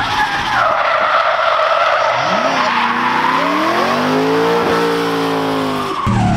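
Supercharged Ford Mustang RTR drift car sliding sideways, its tyres squealing in a long skid. About two seconds in, the engine revs rise and then hold high. The sound cuts off suddenly near the end.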